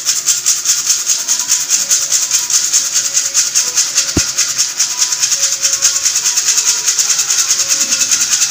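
Powdered bait being shaken through a plastic sieve into a plastic tub: a fast, even, rasping shaker-like rhythm of fine grains hissing through the mesh, with one sharp knock about four seconds in.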